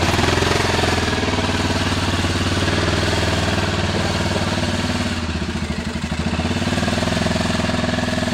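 Arctic Cat ATV engine running steadily close by, picking up slightly at the start and then holding an even note.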